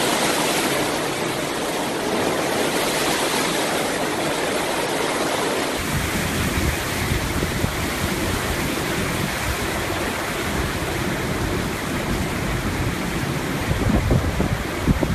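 Hurricane wind, driving rain and surf making a steady rushing noise. About six seconds in, heavy wind buffeting on the microphone adds a low rumble, with sharper gusts near the end.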